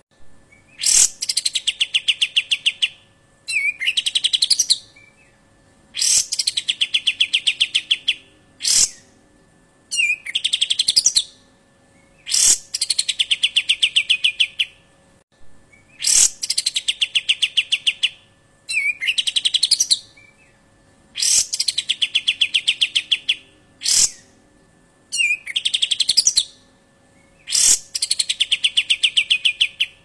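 Kapas tembak bulbul singing its sharp 'besetan' song: fast, piercing trills about a second long, repeated every two to three seconds, each with a sharp single note between them.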